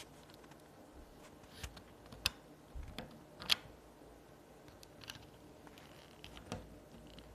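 Scattered plastic clicks and handling taps as an Ethernet cable's RJ45 plug is fitted into a micro USB-to-RJ45 adapter; the sharpest click comes about three and a half seconds in.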